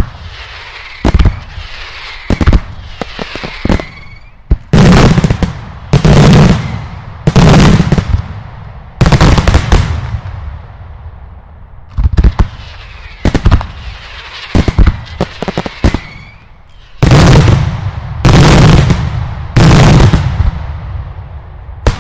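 Loud daylight fireworks exploding overhead: a rapid series of sharp bangs in two volleys with a brief lull between them. Some are single short reports, others longer rattling blasts about half a second each.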